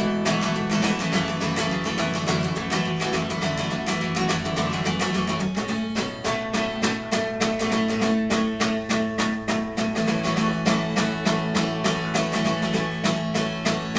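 Solo acoustic guitar played live in a quick, steady rhythm, with no singing. The chords change about six and ten seconds in.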